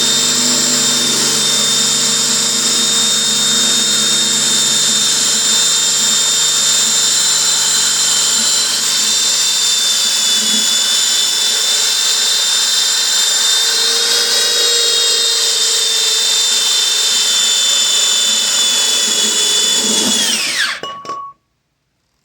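Electric drill with a masonry bit running steadily as it grinds through the bottom of a ceramic pot. About 20 seconds in it is released and its whine falls as it spins down to a stop.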